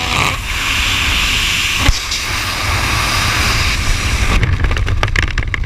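Heavy wind buffeting the camera microphone during a skydive: a loud low rumble under a steady hiss. About four seconds in, the hiss thins and a run of quick sharp crackles and flutters starts.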